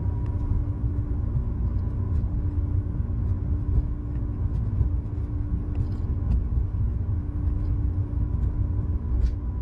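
Cabin sound of a battery-electric ULTra personal rapid transit pod running along its concrete guideway: a steady low rumble from the rubber tyres on the track, with a faint steady hum over it and a few light ticks.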